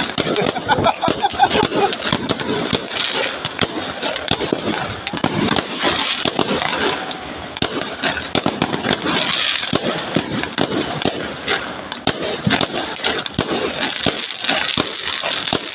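Fireworks and firecrackers going off in a dense, continuous barrage of sharp pops and crackles.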